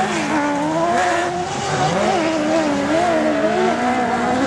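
Autocross race car engines on a dirt circuit, revving up and down continuously as the cars are driven round the track, several engine notes overlapping.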